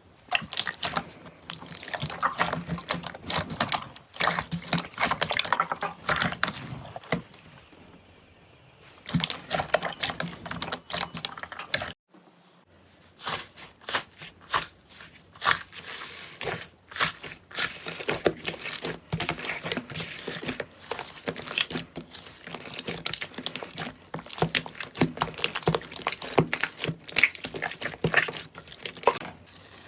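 Hands squishing and stretching slime, making dense, wet crackling and popping clicks, with a short lull about eight seconds in and a sudden break about twelve seconds in.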